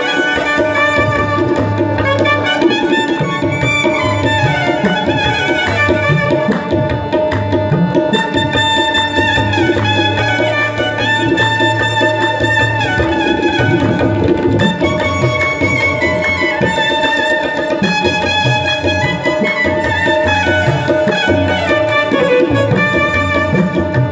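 Music with steady hand-drum percussion, likely tabla, under a winding melodic line that plays throughout.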